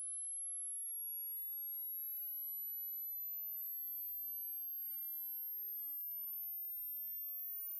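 Hearing-test sine-wave sweep: a single pure, very high-pitched tone rising slowly and steadily in pitch, a frequency high enough that older ears may no longer hear it.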